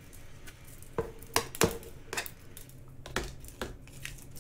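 Sharp clicks and taps of small plastic items, six or so spread unevenly: diamond painting drills and their plastic storage containers being handled on a table.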